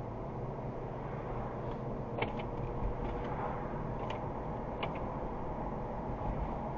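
Car driving along, with a steady low road and engine noise and two sharp clicks, about two and five seconds in.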